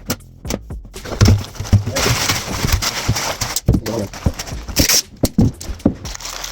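Irregular knocking and clattering of sheet-metal duct pipe being handled and fitted, with scraping noises in between.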